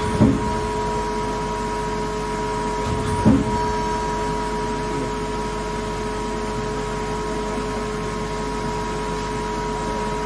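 Gildemeister CTX210 CNC lathe running with a steady two-tone whine. Its tool turret indexes, with two short clunks about three seconds apart.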